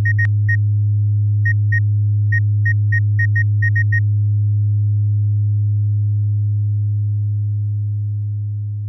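Electronic title sound effect: a steady low hum with a quick series of about a dozen short high beeps in the first four seconds, one for each letter as on-screen text types out. The hum slowly fades toward the end.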